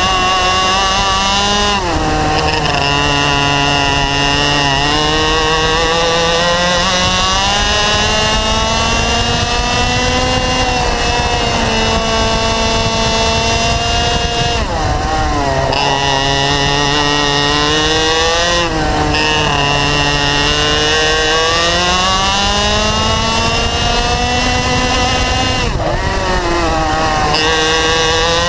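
Onboard sound of a racing kart's two-stroke engine at full race pace. The pitch climbs steadily along each straight and drops sharply under braking into each corner, several times over.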